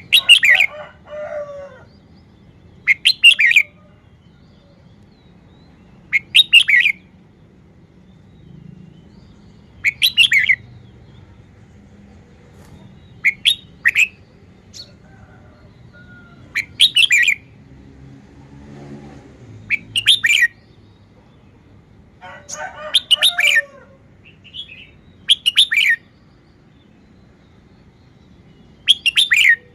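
Red-whiskered bulbul singing short, bright, warbled song phrases, about ten of them, each under a second and repeated roughly every three seconds.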